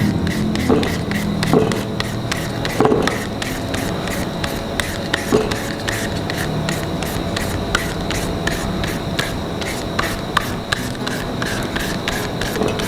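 Green papaya being shredded on a hand shredder: quick, even scraping strokes, about four a second.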